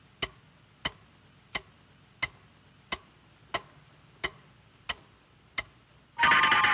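Steady, evenly spaced ticking, about one and a half ticks a second, like a clock in a cartoon soundtrack. Near the end a sudden loud burst of sound cuts in.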